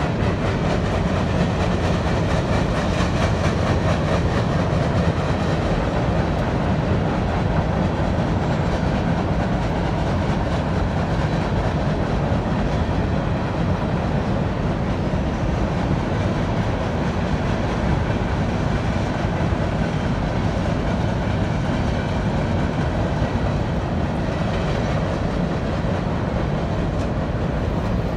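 Freight train cars rolling steadily across a steel trestle bridge, with a continuous clatter of wheels on the rails.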